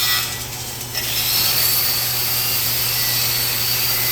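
Handheld power tool spinning a wire wheel against a wheel rim, cleaning the bead seat: a steady whir with a high whine that eases off just after the start and comes back about a second in, over a constant low hum.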